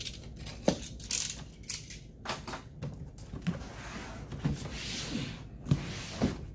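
Utility knife slitting the packing tape on a large cardboard box, a scratchy cutting sound, while the box scrapes and knocks on a wooden tabletop as it is turned. The sharpest knocks come about a second in and twice near the end.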